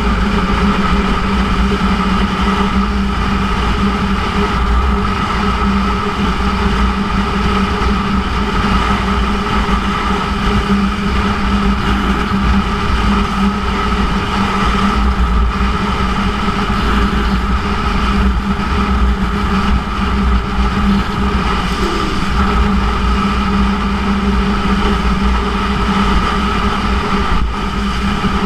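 2006 Yamaha YZF-R1's inline-four engine, fitted with a Yoshimura titanium exhaust, running at a steady speed under cruise, with no rise or fall in pitch. A low wind rumble sits underneath.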